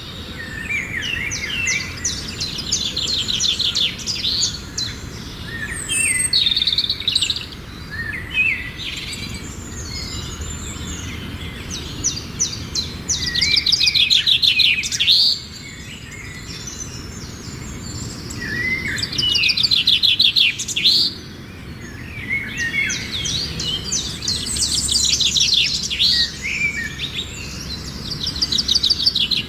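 Birdsong: several birds chirping and singing, with rapid high trills that come in bursts every few seconds over a steady low background.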